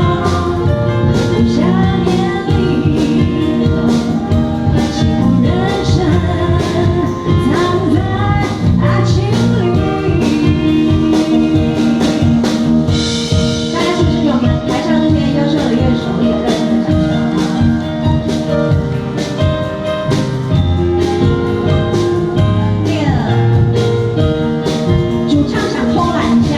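A song with singing over instruments and a steady beat.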